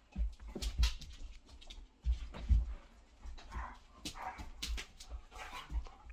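Two large dogs play-fighting on a wooden floor: irregular scuffling, knocks and paw clicks, with a few short whimpering dog sounds about halfway through.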